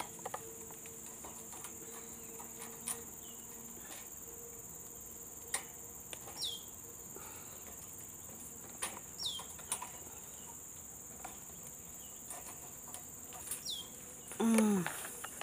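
Steady high-pitched drone of insects, with a bird's short falling call repeated about four times over it. A few faint clicks of twigs or leaves being handled.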